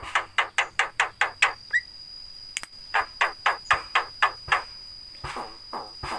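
Javan myna (jalak kebo) giving rapid runs of short, harsh notes, about four a second. A first run stops about a second and a half in, a second run follows near the middle, and fainter notes come near the end.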